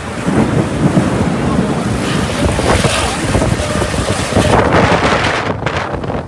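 Strong thunderstorm wind gusting and buffeting the microphone, rising and falling in loud surges.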